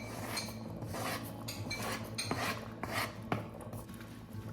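A metal utensil scraping and clinking against a soup pot in irregular strokes, as the soup is stirred and the spinach is worked in.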